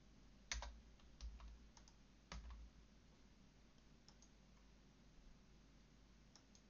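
Faint computer keyboard keystrokes and mouse clicks: several separate clicks in the first couple of seconds, then a few fainter ones later, over a low hiss.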